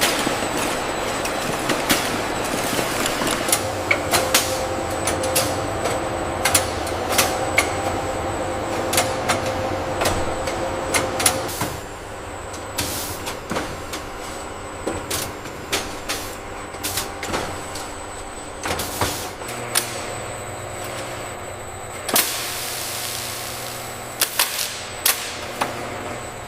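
Factory machinery running steadily with a hum and many irregular clanks and clicks, and a burst of hiss about 22 seconds in.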